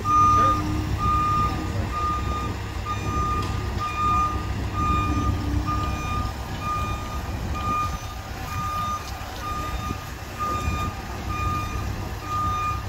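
Telescopic handler's backup alarm beeping steadily, about two even beeps a second, over the low running of its engine.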